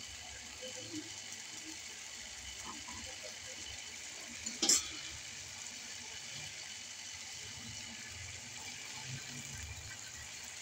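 Chicken and potato curry sizzling steadily in a pan as its masala fries, a soft hiss with faint crackling. One sharp knock sounds about halfway through.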